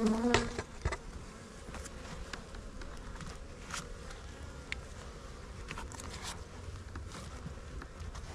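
Honeybees buzzing around an opened hive box, with a louder close buzz right at the start. Scattered light clicks run under the buzzing.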